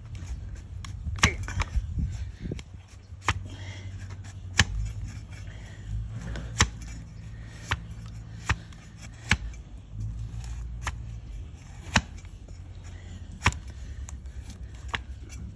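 A hoof-trimming blade cutting into a donkey's hoof horn: a dozen or so sharp, crisp cuts, spaced irregularly about a second apart, over a low steady hum.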